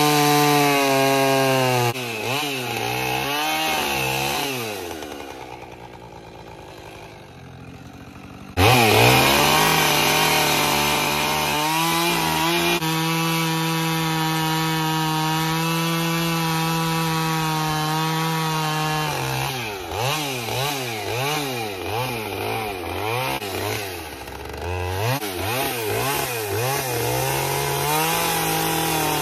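Husqvarna two-stroke chainsaw cutting into a wooden log, its engine pitch swinging up and down as the throttle is worked and the bar goes in and out of the wood. About five seconds in it drops low and quiet for a few seconds. It then comes back suddenly at full speed and holds a long steady cut before the pitch starts swinging again.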